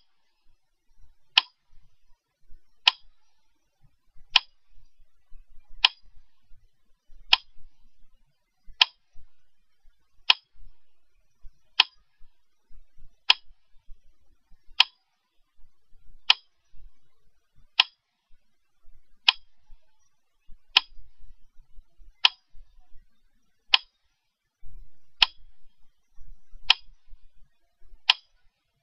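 Sharp single ticks repeating very evenly, one about every one and a half seconds, like a slow metronome.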